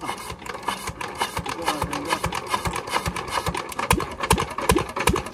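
Diesel engine being cranked on its third start attempt, firing in a rapid, uneven chugging of knocks that quickens near the end as it begins to catch, after a blocked fuel line was cleared.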